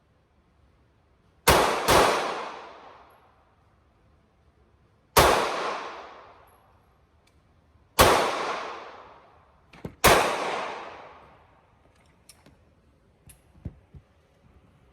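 Five 9mm pistol shots from a Glock 43: two in quick succession, then three single shots a few seconds apart. Each shot has a long echoing decay. A few faint light clicks follow near the end.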